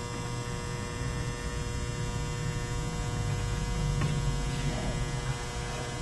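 Electric hair clippers running with a steady buzz while trimming the hairline around a man's ear.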